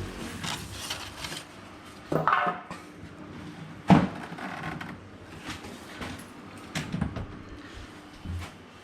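Hard parts of an air-cooler fan being handled during unboxing: scattered clicks and knocks, a short scrape about two seconds in, and one sharp knock about four seconds in.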